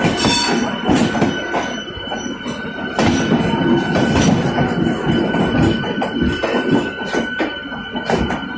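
LHB passenger coaches rolling past at close range, wheels knocking repeatedly over rail joints and points. A steady high-pitched squeal runs beneath the clatter.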